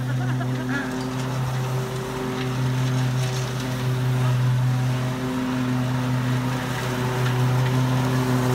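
Red zero-turn riding mower's engine running steadily with a low, even drone, getting a little louder as the mower drives closer.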